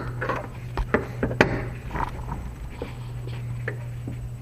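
Flathead screwdriver prying at the metal wire lock on a BMW E85 Z4 headlight's rear cover: scattered small clicks and taps, the sharpest about a second and a half in, over a steady low hum.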